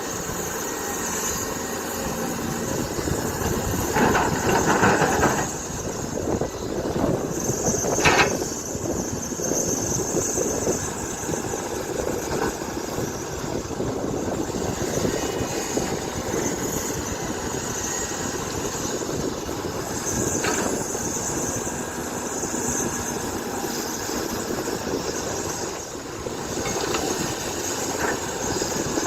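Excavator diesel engine running steadily, with a louder noisy stretch about four seconds in and short sharp noises about eight and twenty seconds in.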